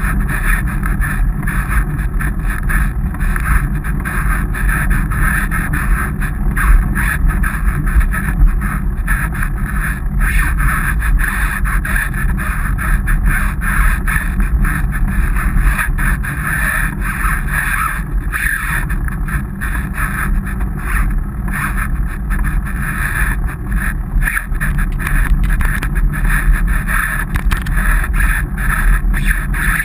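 Steady wind and road rumble on the microphone of a bicycle-mounted camera while riding, with frequent small rattles and knocks from the bike.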